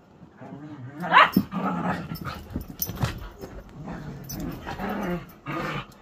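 Two whippets play-fighting, growling and grumbling almost without a break from about a second in, with a sharp rising yelp early in the tussle and scattered sharp clicks.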